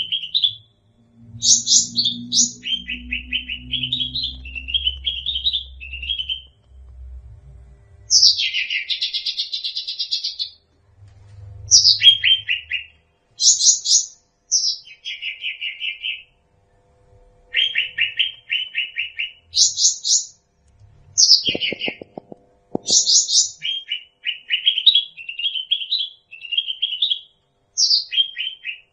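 Cucak rante songbird singing in repeated bursts of rapid trilled phrases. Each burst is a quick string of notes, often opening with a high note sweeping down, with short pauses between bursts.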